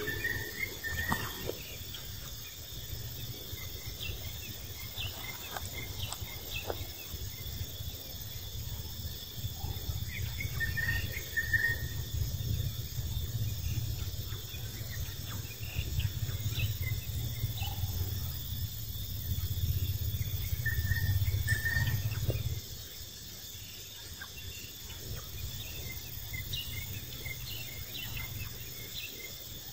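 Steady insect chorus, with a few short high chirps. A low rumble underneath stops abruptly about three-quarters of the way through.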